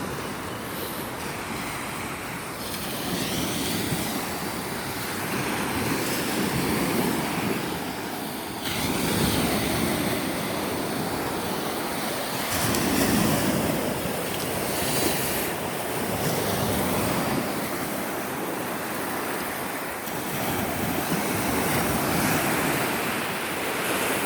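Sea waves breaking and washing up on the shore, swelling and easing in repeated surges every few seconds, with wind on the microphone.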